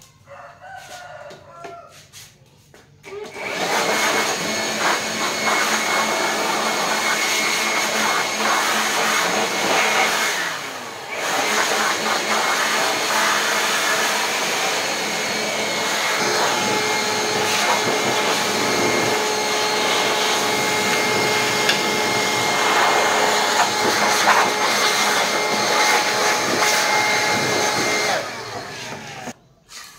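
An electric blower motor starts about three seconds in and runs steadily with a whooshing hiss and a faint whine. It drops briefly about eleven seconds in, then runs on until it stops near the end.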